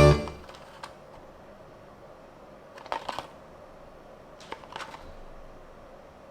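Music cuts off at the start. Then two short clusters of light clicks and rustles, about three seconds in and again about a second and a half later, over a quiet background.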